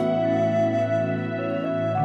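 Slow, soft instrumental background music: a sustained flute-like melody over held low notes.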